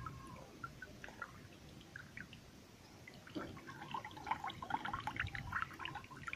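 Water pouring and dripping from a tipped basin into pond water: sparse drips at first, then from about halfway in a quick, busy patter of small splashes and drips.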